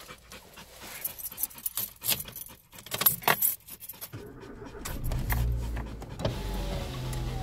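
Car keys jangling and clicking for about four seconds, then the car's engine starts and runs with a low steady hum. Near the end a dog whines in a thin, wavering tone.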